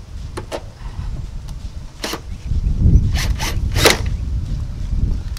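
A hand ratchet zipping in a few short strokes as the seat's mounting bolts are run in: two quick strokes near the start, one about two seconds in, and three close together near the end, over a low rumble.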